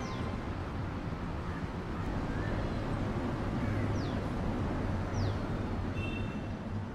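Street ambience: a steady low rumble of distant traffic, with a bird giving short, high, falling calls three times.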